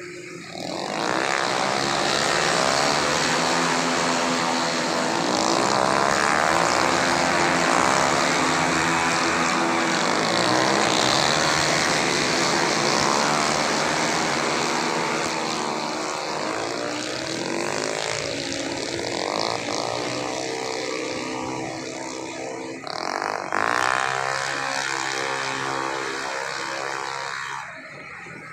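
Several tuned 130 cc automatic scooter engines running hard at high revs in a road race, their pitches overlapping and sliding up and down as they rev and pass. The sound rises about a second in, surges again briefly later on, and drops off near the end.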